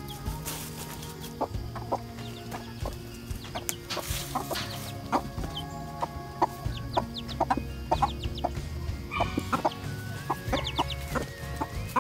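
Hens clucking in short, scattered calls, with brief high chirps, over background music with sustained notes.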